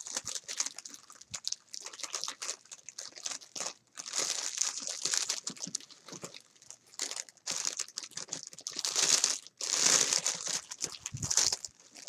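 Crinkly packaging being handled and opened by hand, in irregular bursts of crinkling and rustling with a few brief pauses.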